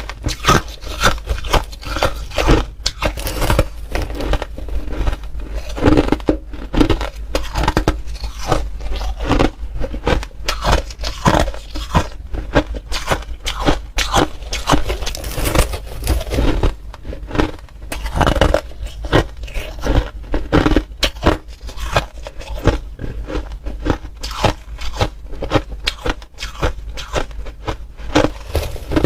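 A person biting and chewing crunchy ice, close up: one crunch and crack after another without pause.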